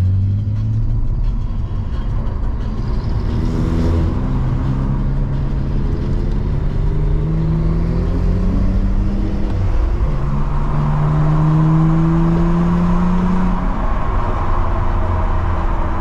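BMW E46 325i's 2.5-litre straight-six engine, heard from inside the cabin, pulling hard with its pitch rising through one gear, a shift about ten seconds in, then rising again before easing off near the end. Road rumble runs underneath.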